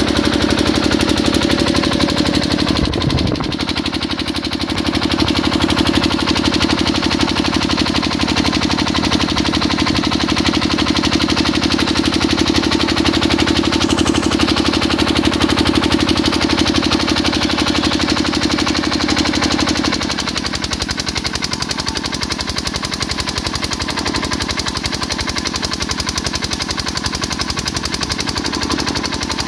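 Single-cylinder diesel engine of a 7.5 kVA generator set running steadily with a rapid, even chugging. About 20 seconds in it drops a little in loudness.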